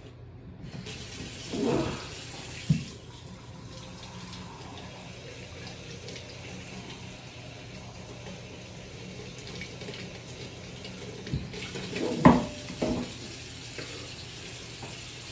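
Kitchen tap running with a steady hiss for about ten seconds, then shut off. A few knocks and clinks follow about twelve seconds in, the loudest sounds here.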